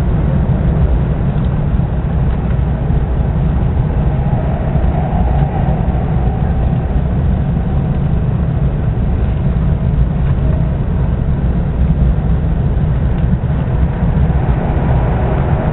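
Max Yamabiko Tohoku Shinkansen train running, heard from inside the passenger cabin as a steady low rumble with a hiss over it.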